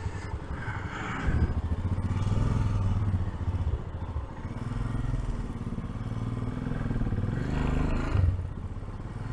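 Royal Enfield Himalayan's single-cylinder engine running while the motorcycle is ridden, its note rising and falling.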